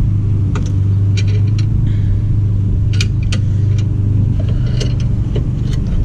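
Steady low hum throughout, with scattered light metallic clicks and ticks as a C-clamp's screw is turned to press a rear brake caliper piston back into its bore.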